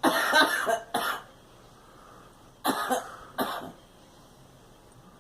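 A girl coughing in two fits: a hard run of coughs right at the start with a short one about a second in, then two more coughs around the three-second mark.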